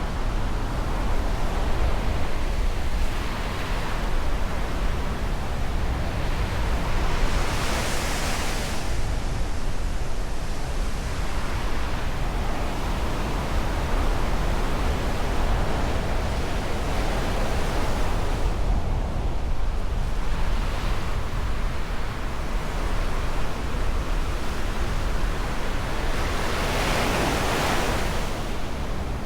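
Black Sea surf washing on the shore, with two bigger waves breaking about eight seconds in and near the end. Wind rumbles steadily on the microphone.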